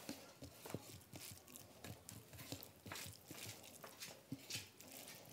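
Fingers mixing rice with egg curry on a plate, making soft wet clicks and squelches that come irregularly several times a second.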